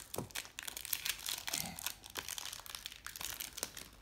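A small shiny pink plastic-foil toy wrapper crinkling and tearing as it is peeled open by hand, in irregular crackles.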